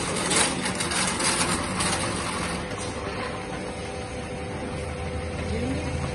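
Electric stainless-steel coconut peeling machine running with a steady motor hum. For about the first two and a half seconds a rough, rapidly pulsing scraping noise rides over the hum, then it drops away and the hum continues alone.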